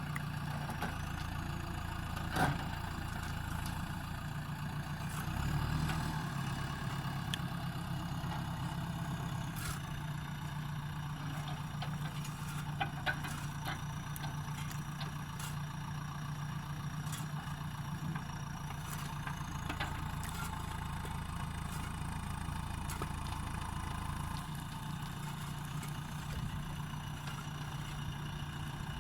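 JCB backhoe loader's diesel engine running steadily, swelling briefly about five to six seconds in, with a few sharp knocks, the loudest one about two seconds in.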